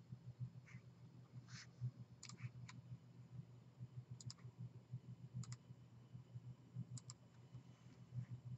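Faint computer mouse clicks, about half a dozen scattered through, several as quick double clicks, over a steady low hum.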